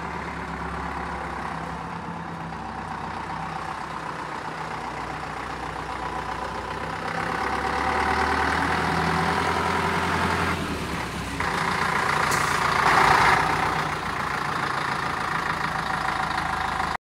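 Diesel engine of a Scania 50 Super truck running as the truck drives slowly up, louder from about seven seconds in, with a brief louder burst of noise about thirteen seconds in.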